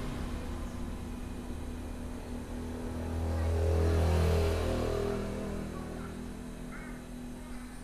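A motor vehicle engine running past, its low hum growing louder to a peak about halfway through and then fading away.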